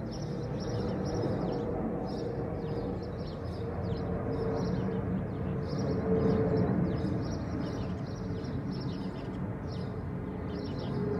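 Small birds chirping in quick repeated series over a steady low rumble of distant vehicles, which swells around the middle and then eases off.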